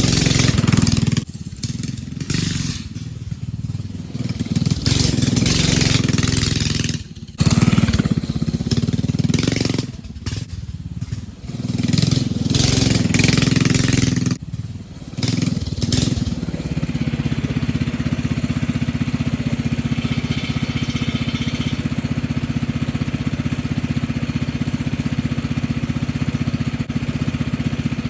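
Small single-cylinder minibike engine being ridden, revving up and dropping off in uneven surges. About sixteen seconds in it settles into a steady idle.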